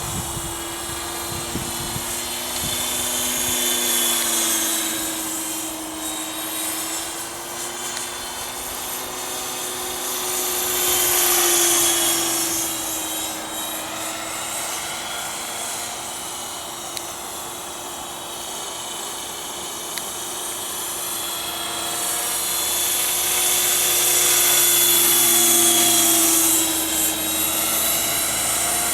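A 500-size radio-controlled scale Little Bird helicopter flying: a steady rotor whine with a hissing blade sound, its pitch slowly wavering. It grows louder as it comes close, around four seconds in, again about eleven seconds in, and most of all from about twenty-three to twenty-seven seconds.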